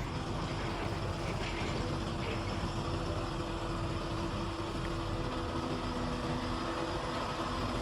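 A steady mechanical hum, like an engine running at a constant speed, with a few faint steady tones and no sudden events.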